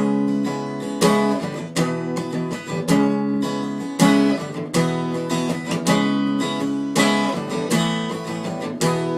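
Acoustic guitar strumming chords steadily in an instrumental break of a folk song, with no singing. The strokes land roughly once a second.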